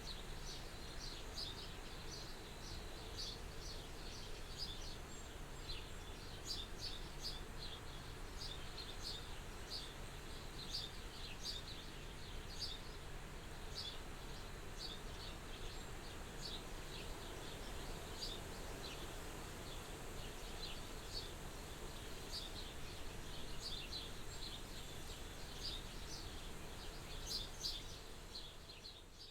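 Soft, steady wind at a farmhouse window, with small birds chirping again and again in short high calls. The sound fades down at the very end.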